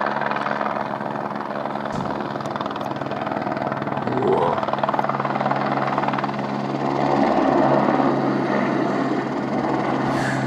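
Aérospatiale AS350B2 Écureuil helicopter flying low overhead: its single turboshaft engine and main rotor give a steady low hum over a dense rushing noise. The sound grows louder about four seconds in and peaks around seven to eight seconds as it comes close.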